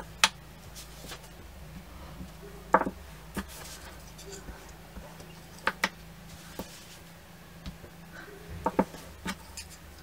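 Sharp hard-plastic clicks and taps from a clear acrylic stamp block and ink pad knocking together and against the table as a rubber leaf stamp is inked and pressed onto cardstock. There are about eight separate knocks, some in quick pairs, over a faint steady hum.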